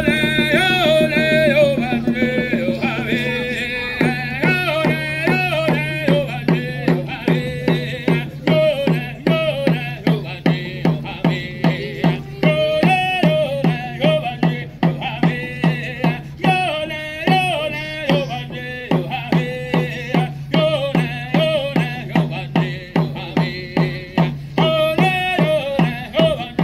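Haudenosaunee smoke dance song: a singer chanting over a water drum. It opens with a drum roll under a held note, then about four seconds in the drum settles into a fast, even beat under the song.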